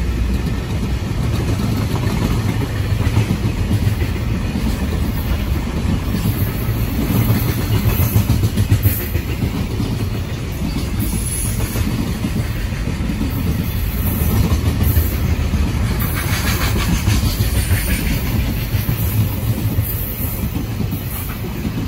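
Container flat wagons of a freight train rolling past: a steady, loud rumble of steel wheels on the rails with rhythmic clickety-clack over the rail joints, and a brief brighter rattle about two-thirds of the way through.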